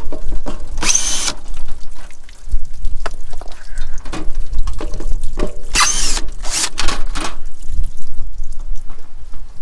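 Cordless drill with a nut driver spinning screws out of an RV water heater's mounting in short bursts: a brief one about a second in and a longer, stuttering run around two-thirds of the way through, over a steady low rumble.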